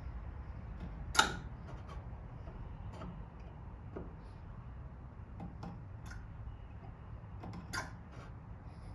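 Scattered light taps and clicks of hand tools and wood at a workbench, with two louder knocks, one about a second in and one near the end, over a low steady hum.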